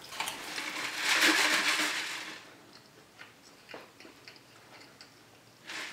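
A drink being slurped for about two seconds, then a few faint light clicks.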